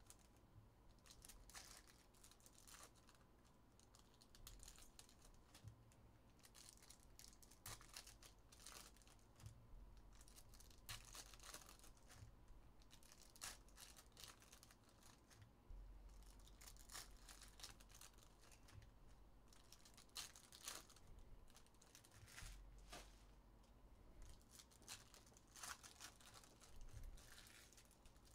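Foil trading-card pack wrappers being torn open and crinkled by hand, faint, in short sharp rips and crackles at irregular intervals.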